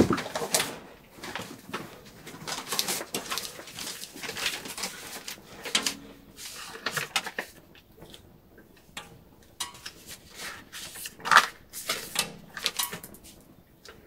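Paper rustling and crinkling in irregular handfuls as newspaper clippings are drawn out of a packet and leafed through, with a sharper crackle of paper about 11 seconds in.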